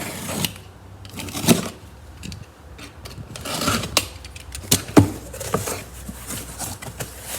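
Hands handling a newly bought set of retractable seatbelts: rustling packaging with irregular sharp clicks and clinks of the metal buckle and mounting hardware, the loudest a few seconds in.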